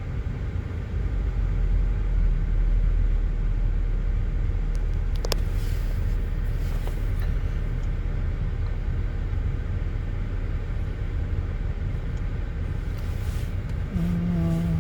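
2008 GMC Acadia's 3.6-litre V6 idling with a steady low rumble. It is running with a multiple-cylinder misfire (code P0300), a fault later traced to cylinder 5's ignition coil and spark plug.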